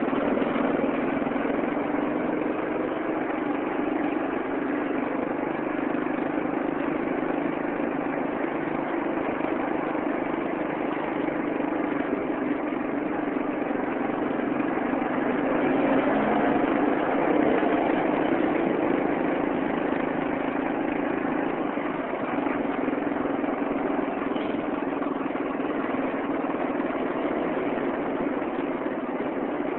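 Vehicle engine running steadily with road noise, heard from a moving vehicle.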